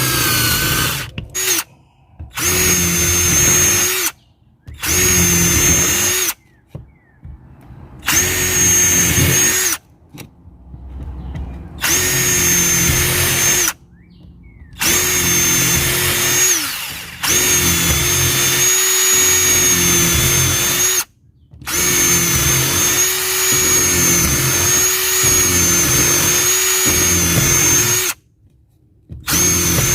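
Bauer 20-volt cordless impact driver's motor running in repeated trigger pulls. There are about ten runs, each a few seconds long with a steady whine, and the longest lasts about six seconds near the end; short silences fall between them.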